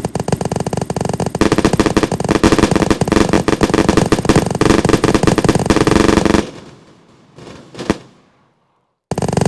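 Fireworks going off in a dense, rapid run of sharp bangs and crackles. The bangs stop about six and a half seconds in, leaving a couple of faint pops and a moment of dead silence, then the barrage starts again near the end.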